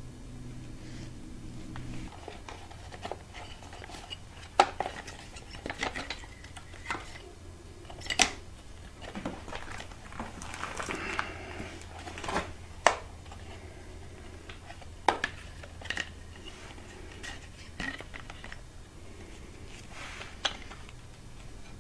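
Irregular light metallic clicks and knocks, a few of them sharp, with some rustling, as gloved hands work a timing belt onto the cam sprockets and idler pulleys of a Subaru engine. A steady low hum runs underneath.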